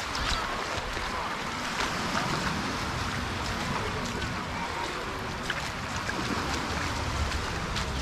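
Beach ambience: a steady wash of sea surf and wind, with faint voices of beachgoers and scattered short clicks.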